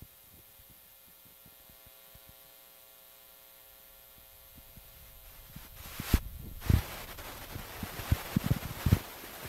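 Telephone pickup coil's output as a small disc magnet is brought up to it: faint mains hum at first, then, from about five and a half seconds in, a rising static hiss with sharp pops and thumps as the magnet reaches the coil and every slight movement of it is picked up.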